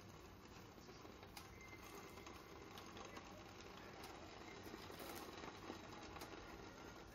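Faint, steady sizzling from sauce-marinated lamb (tare jingisukan) cooking under the lid of an electric hot plate, with a few soft ticks.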